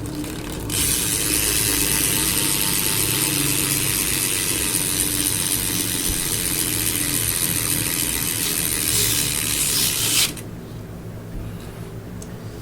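Stock cassette rear hub of a 2011 GT Bump BMX freewheeling as the rear wheel spins: a fast, dense ratcheting buzz of the pawls that starts about a second in and cuts off suddenly near the end.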